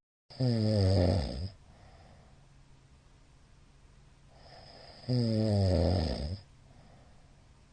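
A man snoring loudly: two long snores, each a little over a second, about four and a half seconds apart, with quieter breathing between them over a faint steady hum.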